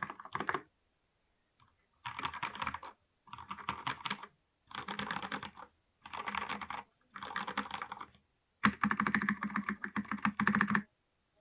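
Typing on a Vortex Tab 90 mechanical keyboard with Cherry MX Red linear switches: quick runs of key clacks, each about a second long with short pauses between them. The last and loudest run stops near the end.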